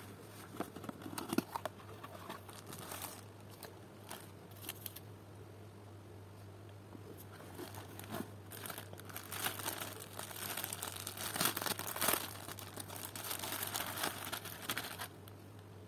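Clear plastic packaging bag crinkling and rustling as a plush doll is handled and unwrapped. Scattered rustles and taps in the first half give way to dense crinkling from about halfway in, which stops shortly before the end.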